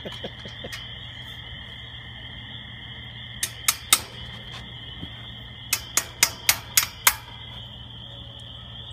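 Sharp knocks on the steel base of a lattice tower as a bolt is worked into it: three near the middle, then a quick run of six at about four a second. Under them runs a steady high chorus of insects.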